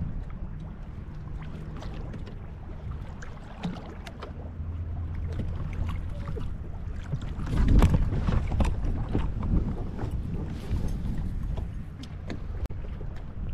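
Wind on the microphone and choppy water slapping the hull of a Hobie Pro Angler fishing kayak, with scattered clicks and knocks from the boat and tackle and one louder thump a little past halfway.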